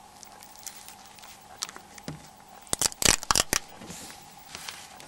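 Thin plastic film or adhesive backing being peeled and handled, giving scattered ticks and then a quick cluster of sharp crackles about three seconds in, over a faint steady hum.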